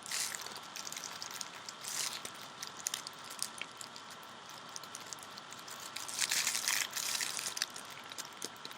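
Handling noise as the parts of an Easy Valve filling chamber for a Volcano vaporizer are pushed and turned against each other: irregular rubbing and scraping with small clicks. The loudest stretch comes about six seconds in.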